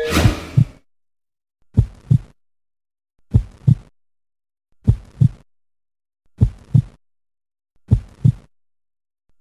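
Slow heartbeat sound effect: a soft, low double thump (lub-dub) about every second and a half, with silence between the beats.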